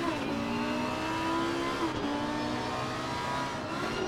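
A vehicle engine accelerating hard. Its pitch climbs steadily and drops suddenly about every two seconds, at the start, about two seconds in and near the end, as with upshifts through the gears.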